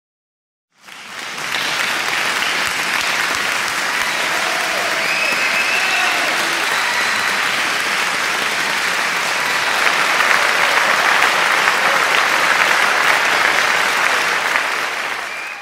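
Applause from a large audience, fading in about a second in and then clapping steadily.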